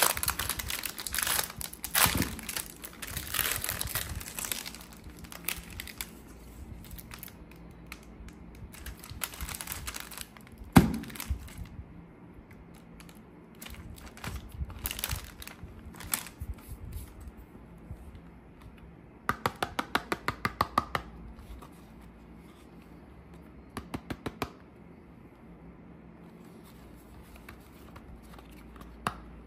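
Gold foil and plastic inner wrapper of a chocolate bar crinkling as it is peeled open, densest in the first several seconds. One sharp knock comes about eleven seconds in. Later there is a quick run of light clicks and some quieter handling of a cardboard carton.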